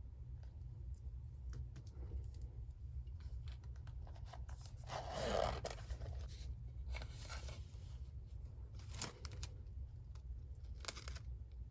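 Paper being torn, with one longer tear about five seconds in, a shorter rip soon after, and small paper clicks and rustles around them. A low steady hum runs underneath.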